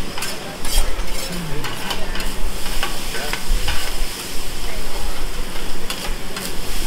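Fried rice sizzling on a hot steel hibachi griddle while metal spatulas scrape and clack against the flat top in quick, irregular strikes over the steady frying hiss.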